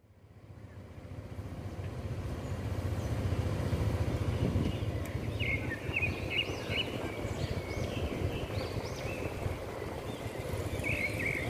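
Steady low rumble of distant city traffic, fading in over the first two seconds, with small birds chirping in short repeated calls from about halfway through.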